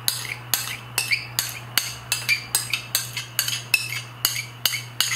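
Metal spoon scraping and clinking against a bowl in quick strokes, about three a second, scraping out the last of the melted butter. A steady low hum runs underneath.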